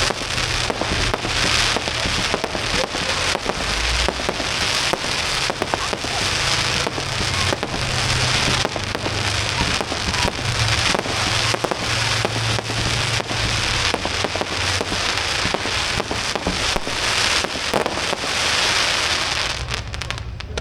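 Fireworks going off: a dense, continuous crackle of many small rapid pops with a hiss like rain.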